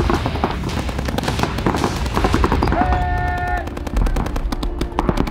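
Paintball markers firing in rapid strings of sharp pops during a tournament game, with a short held tone about three seconds in.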